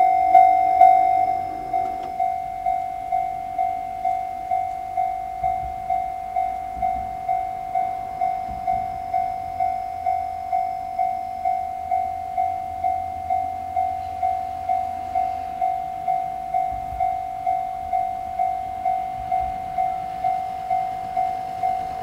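Japanese level-crossing electronic warning bell (JR East Tohoku-type tone) ringing steadily at about two and a half dings a second. It drops to a quieter level about a second in.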